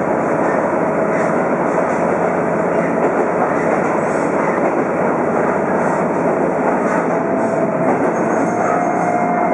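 Diesel railcar running along the track, heard from inside the passenger cabin: a steady rumble of engine and wheels on rail, with a faint whine that rises slightly in pitch about eight seconds in.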